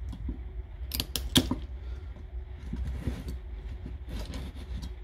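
Tin snips cutting through the nickel strip connections of a Milwaukee M18 battery's circuit board: a quick run of sharp metallic snaps about a second in, then lighter clicks and plastic rattles as the board is worked loose from the housing. A low steady rumble runs underneath.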